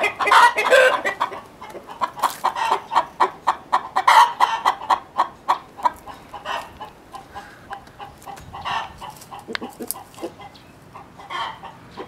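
A flock of Nagoya Cochin chickens cackling together in loud, rapid, repeated clucks. This is chain-calling, with one bird's cackle spreading to the others. It is loudest over the first few seconds, then thins out. The keeper takes it to have been set off by a hen cackling after laying an egg.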